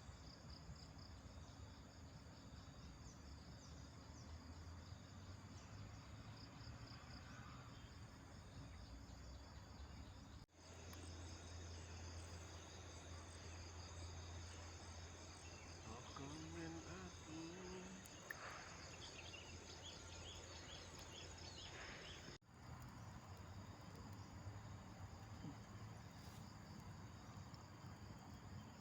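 Faint forest insect chorus, crickets trilling in a steady pulsing drone. It drops out for an instant twice where the audio is cut.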